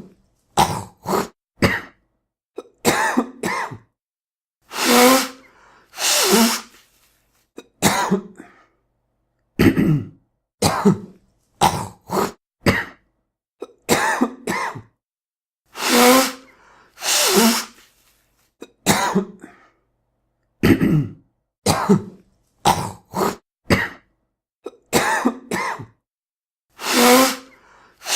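A man coughing, clearing his throat and blowing his nose in a string of short separate fits with silent gaps, a few of them longer and noisier. The same sequence repeats about every eleven seconds.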